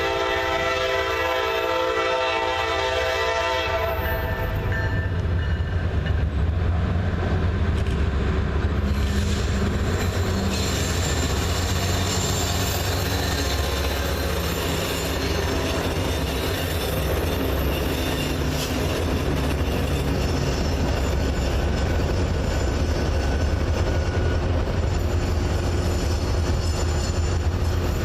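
Norfolk Southern PR43C freight locomotive sounding its Nathan K5LA horn in a chord for about the first four seconds. The lead PR43C, a second PR43C and an SD40-2 then work past, with diesel engines running, wheels clicking over the rail joints and thin steel-wheel squeal from about nine seconds in.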